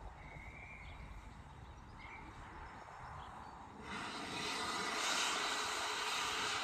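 Faint background noise with two short, faint high chirps. About four seconds in, the steady rumbling noise of a train running starts suddenly.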